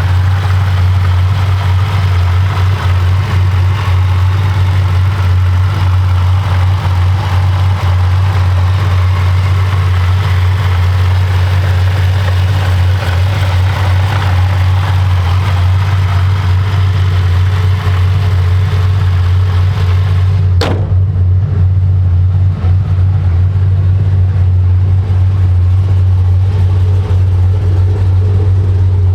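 Twin-screw supercharged V8 of a 2010 Chevrolet Camaro SS running at a steady, unchanging engine speed: a loud, constant low drone. There is one sharp click about two-thirds of the way through.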